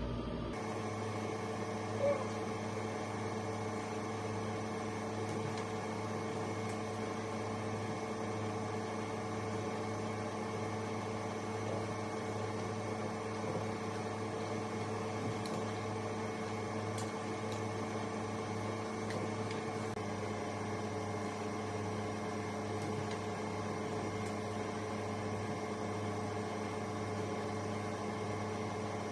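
Steady electrical hum made of several fixed tones, holding level throughout, with a single short click about two seconds in.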